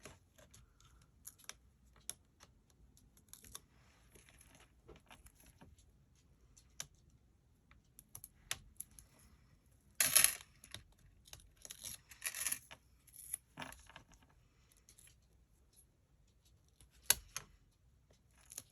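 Paper-craft handling at a table: scattered light clicks and taps with short bursts of paper rustling, the loudest rustles about ten and twelve seconds in.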